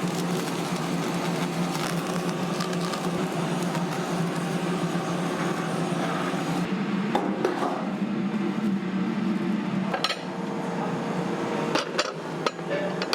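Food sizzling on a hot griddle for the first half, then the sizzle fades and metal utensils knock and clink against the cooking surface and dishes in a string of sharp taps near the end.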